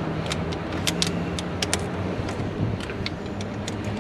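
Socket ratchet clicking in short, irregular strokes while a bolt is run in on a new EGR valve, over a steady low hum.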